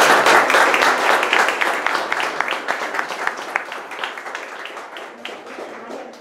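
Audience applauding. It is loudest at the start and thins out into scattered single claps that die away.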